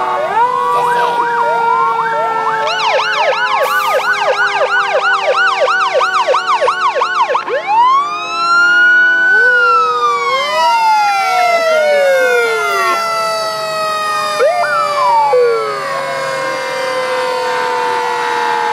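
Several fire-engine sirens sounding at once as the trucks pass. There is a fast yelp at about three sweeps a second for several seconds, then slower wails that rise and fall.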